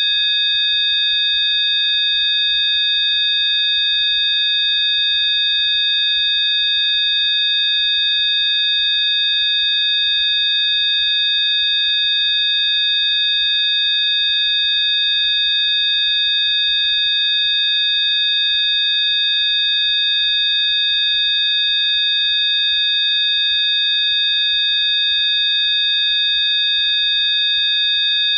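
Synthesized Rife frequency tones: several steady, high-pitched pure electronic tones sounding together, held without change.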